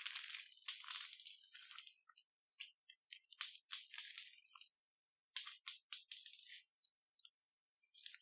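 Crunchy slime crackling and popping in short clusters with gaps between, densest in the first couple of seconds.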